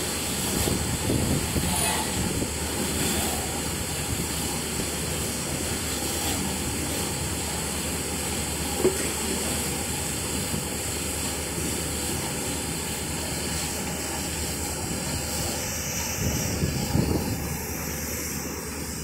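Steady rumble and swish of a passenger coach rolling slowly through an automatic coach wash plant, its tall rotating brushes scrubbing along the coach side. A single short knock sounds about nine seconds in.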